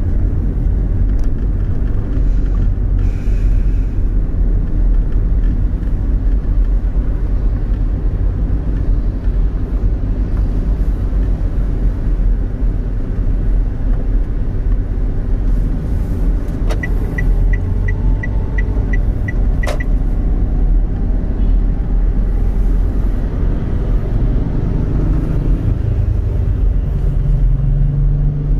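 Steady low rumble of a moving vehicle, engine, tyres and wind on the microphone. Partway through, a click starts a run of about nine short high beeps, about three a second, which stop with a second click after about three seconds.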